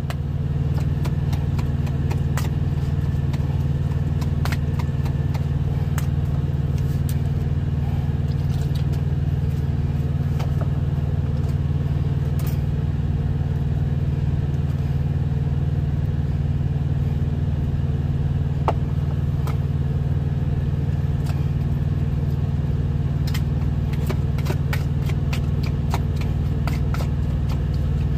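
Steady low drone of a semi-truck's diesel engine idling, heard inside the cab, with scattered light clicks and scrapes of a whisk against a foil pan as potatoes are mashed by hand, more of them near the end.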